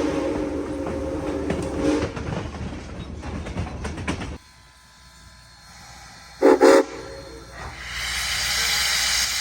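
Southern Railway 630's Nathan six-chime steam whistle sounding a steady chord that stops about two seconds in, followed by the locomotive's rumble and clatter. About six and a half seconds in the whistle gives one short, loud blast, and a steady hiss follows near the end.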